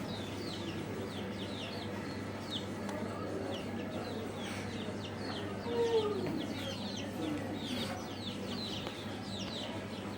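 Small birds chirping over and over in quick, short falling chirps, with a lower falling call about six seconds in and a steady low hum underneath.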